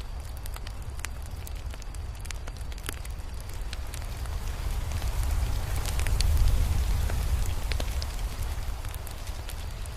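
Crackling fire: a low steady rumble of flames with scattered sharp pops and crackles, swelling louder in the middle.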